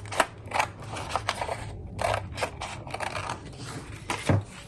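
Scissors snipping through a paper book page in a run of short, uneven cuts, with a heavier knock near the end.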